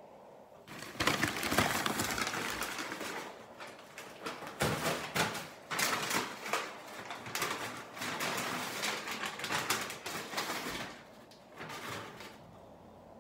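Plastic grocery bag rustling and crinkling as it is handled and unpacked, in irregular bursts that die away about eleven seconds in, with a brief rustle shortly after.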